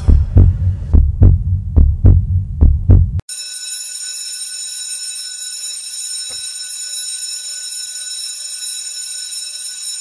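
Heartbeat sound effect, a regular run of deep double thumps that cuts off suddenly about three seconds in. A steady high electronic tone then holds without a break, like a heart monitor's flatline.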